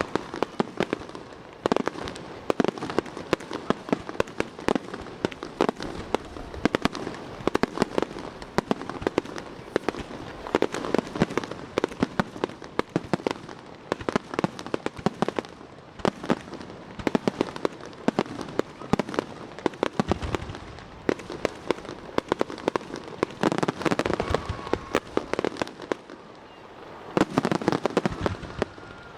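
Aerial fireworks: dense, rapid crackling pops go on throughout, with heavier bursts of crackle gathering every few seconds and a few deeper booms among them.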